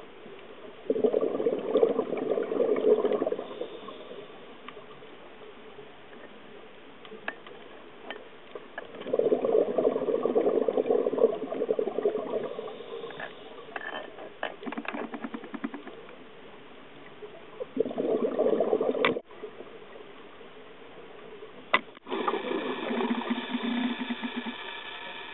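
Scuba diver's exhaled bubbles rushing out of the regulator in bursts of two to three seconds, about every eight or nine seconds, with faint clicks and hiss between breaths. Near the end, after a cut, a steadier hum comes in with another burst of bubbles.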